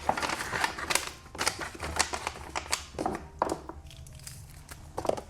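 Rustling and crinkling of food packaging, with light knocks as pantry items are handled and moved, in irregular clicks and crackles.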